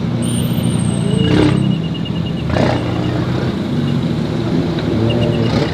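Car engine running at idle, a steady low drone, with two brief knocks about one and a half and two and a half seconds in.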